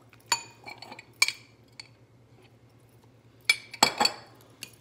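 Metal fork clinking against a ceramic mixing bowl while deviled-egg yolk filling is stirred. There are a few separate clinks, then a louder cluster of clinks about three and a half seconds in, as a spoon in a glass jar is handled.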